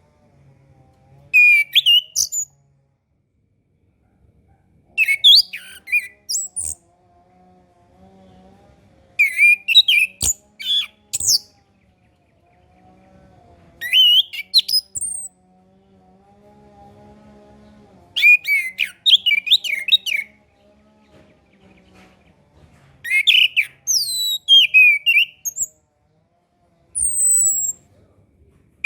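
Orange-headed thrush singing: seven short bursts of quick, varied whistled phrases a few seconds apart, over a faint low hum.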